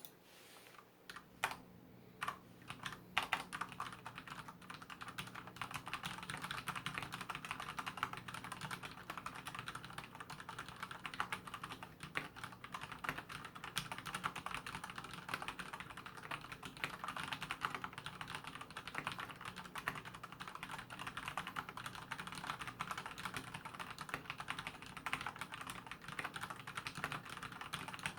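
Typone Mars Pro mechanical keyboard with Cherry MX Black linear switches being typed on: a few single keystrokes at first, then steady fast continuous typing from about four seconds in.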